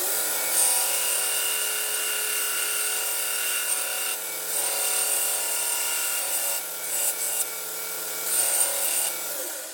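Belt grinder running with brass being ground on the belt, a steady motor hum under a grinding hiss that swells and dips as the piece is pressed on and lifted off. The grinder winds down near the end.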